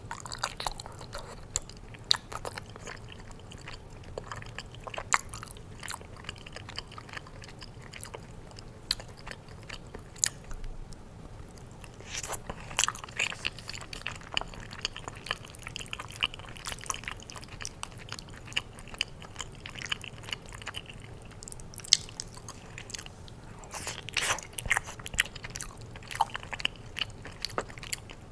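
Close-miked chewing and biting of lasagna: wet, sticky mouth sounds with many short smacks and clicks, louder clusters of bites about halfway through and again near the end.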